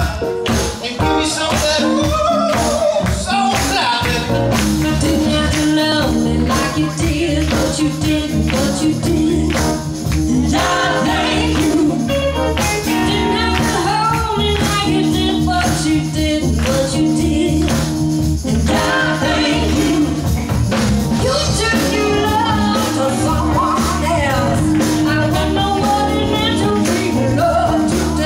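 Live band playing a soul song, with two women singing over electric guitar, bass guitar, drums and percussion. The bass and full band come in about four seconds in, after an opening of sharp rhythmic hits.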